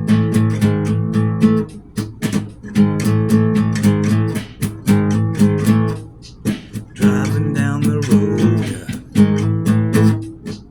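Acoustic guitar strumming chords in a steady rhythm, in short phrases with brief breaks between them. The pitches glide in the middle, as in a slide or bent notes.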